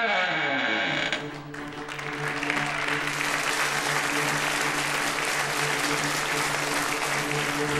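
Audience applauding over music with long held notes; the applause starts about a second and a half in, swells, and carries on.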